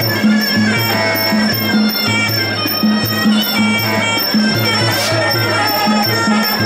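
Sarama, the traditional music of Muay Thai bouts: a reedy pi java oboe melody over a steady, repeating pattern of drums, with small cymbals.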